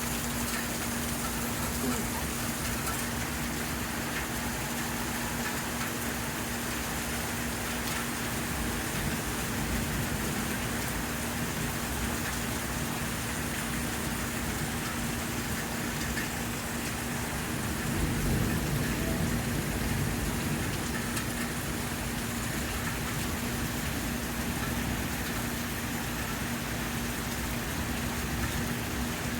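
Steady rain falling, with a steady low hum underneath. A low rumble swells briefly about two-thirds of the way through.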